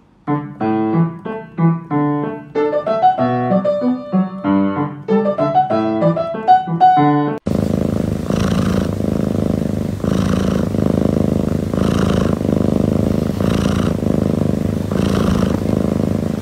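Piano playing a quick run of single notes and chords, then an abrupt change about seven seconds in to a sleeping cat purring close to the microphone: a steady rumble that swells with each breath, about every second and a half.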